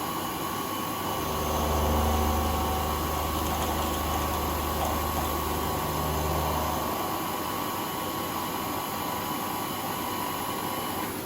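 Manual knee mill running during a power-fed finishing cut, with a steady whine throughout. A deeper hum joins about a second in and drops away after about six seconds.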